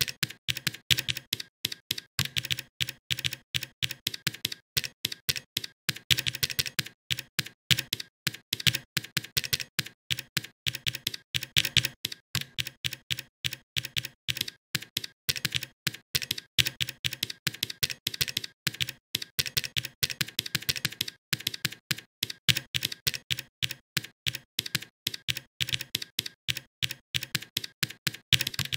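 Typing on a computer keyboard: fast runs of keystroke clicks, several a second, with a few short pauses.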